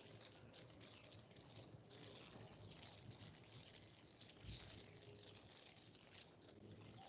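Near silence: faint room tone with a light hiss.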